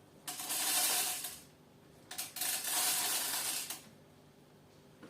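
Whole coffee beans poured out of a bag in two pours, each a rattling rush lasting about a second and a half.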